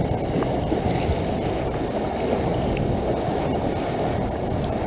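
Steady wind rumble on the microphone, mixed with sea waves washing against the rocks of a jetty.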